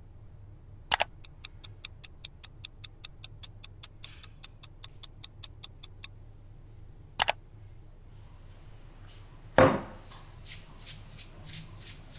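Clock-ticking sound effect, about five even ticks a second for roughly five seconds, opened by a sharp click. Another single click follows, then a heavy thump about ten seconds in and a few lighter ticks after it.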